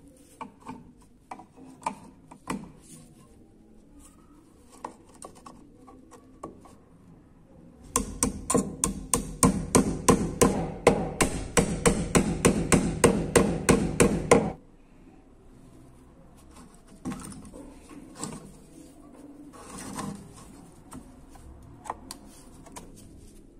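Rapid light hammer taps, about four a second for some six seconds, on a thin metal rod set into the corner joint of a small metal-framed glass lantern. Before and after, scattered clicks and knocks of the glass panels and metal frame being handled.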